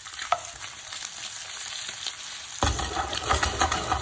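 Cubes of sheep's tail fat sizzling in a frying pan as they render down, with a wooden spoon stirring and clicking through them at first. About two and a half seconds in, the sizzling turns louder and fuller.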